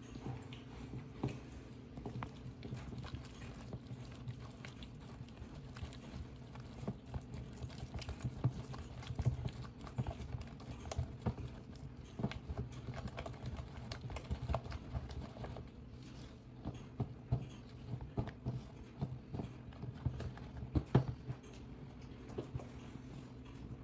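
A spatula beating a thick batter in a mixing bowl by hand: irregular quick knocks and scrapes against the bowl, over a steady low hum.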